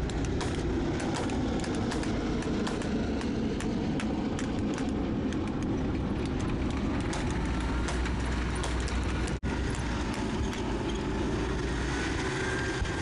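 Engines of World War II armored vehicles, a Hetzer tank destroyer and half-tracks, running with a steady deep rumble, under scattered sharp cracks. The sound cuts out briefly about nine seconds in.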